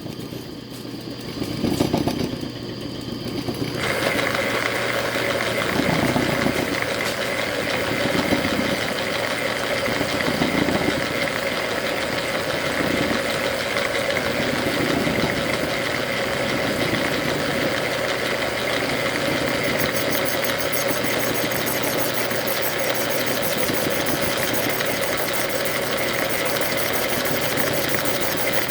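Logan metal lathe powering up and running steadily, its motor and gear train humming, during a thread-cutting pass. It settles into a steady run about four seconds in, with a low pulsing every two seconds or so that fades out over the first half; a high whine joins in the second half.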